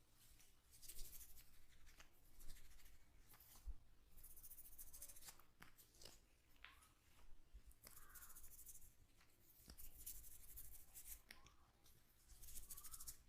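Hands rubbing oiled hair and scalp in a head massage: quiet, repeated rustling, crackling strokes, each lasting about half a second to a second and a half, with a few soft clicks between them.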